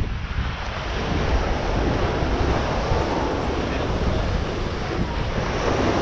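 Surf washing onto a sandy beach, with wind buffeting the microphone in low, gusty rumbles.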